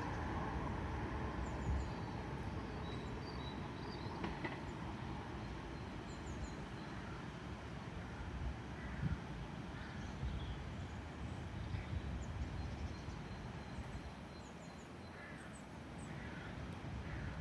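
Outdoor riverside ambience: a steady low rumble, with faint, short high bird chirps scattered through it.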